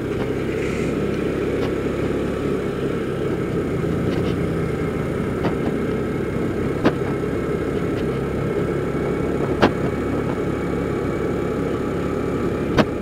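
Kymco Super 8 150 scooter's single-cylinder four-stroke engine running steadily while riding at an even speed, with road noise. A few short sharp clicks come through, the last near the end.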